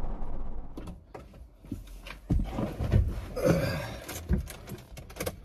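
Scattered knocks, clicks and rustling of someone moving about and handling things inside a car's cabin, with a brief breath-like vocal sound about three and a half seconds in. The tail of a revving car engine fades out right at the start.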